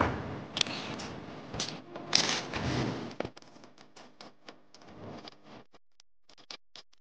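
Live band percussion: a heavy drum-and-cymbal hit at the start, ringing on for about three seconds, then a run of short, sharp percussion taps that grow sparser and fainter.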